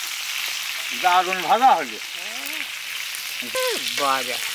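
Pieces of grouper deep-frying in hot oil in a wide, flat iron pan over a wood fire: a steady sizzle. A person's voice breaks in twice, briefly, about a second in and again near the end.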